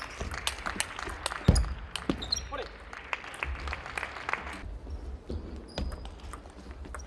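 Table tennis rally: the plastic ball clicking in quick succession off rackets and table, with one heavy thud about a second and a half in. The clicking pauses briefly past the middle, then a new rally starts near the end.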